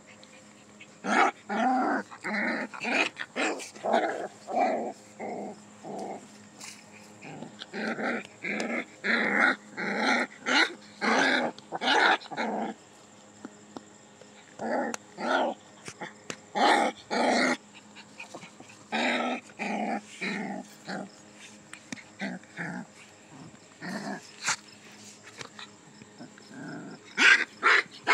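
Two puppies growling as they wrestle and mouth each other, in short repeated bursts with brief pauses between bouts.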